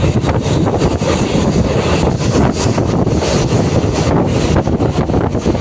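Wind buffeting the microphone at the open window of a moving DEMU train, over the train's steady running rumble.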